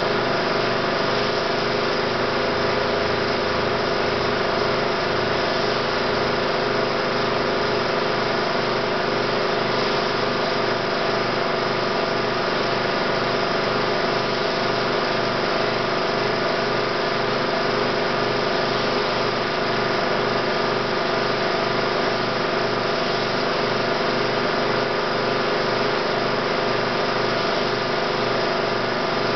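A 16mm film projector running steadily: a constant motor whir with several steady tones, unchanged throughout.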